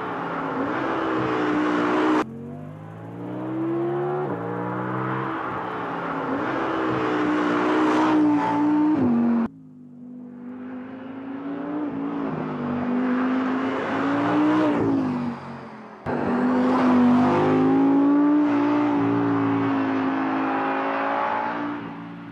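A sports car's engine revving as the car is driven, its pitch climbing and dropping back over and over through gear changes. The sound breaks off abruptly three times where the shots are cut together.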